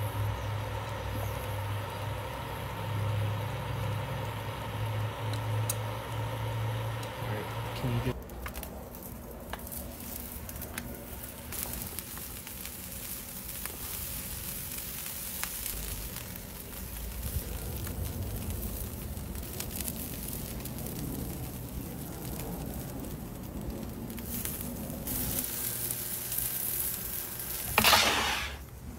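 A steady hum for about the first eight seconds. Then food sizzling and crackling on a hot flat-top griddle, with a brief loud swoosh near the end.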